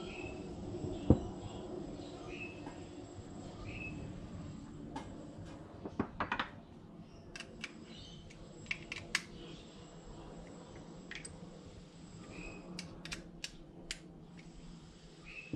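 Light metallic clicks and taps from small throttle-linkage parts and hand tools being handled and fitted on a workbench, with one sharper knock about a second in and small clusters of clicks further on.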